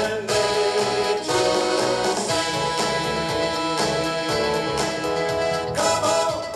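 Recorded disco-style music with a brass section playing over a steady beat.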